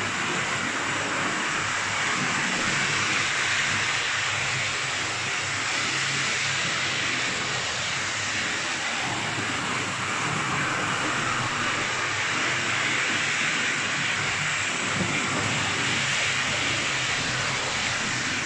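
OO gauge model train running steadily along the layout's track: an even whirring hiss from the motor and wheels on the rails, with a low hum underneath.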